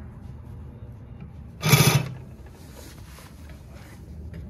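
Consew 339RB-4 two-needle walking-foot industrial sewing machine running as it sews, with one short, loud rattling noise about a second and a half in, lasting about a third of a second. It is an unwanted noise from one part of the machine hitting another.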